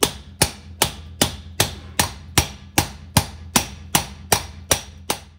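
A hammer striking a manual valve guide driver in steady, even blows, about two and a half a second, each with a short metallic ring, driving a new valve guide into an engine cylinder head.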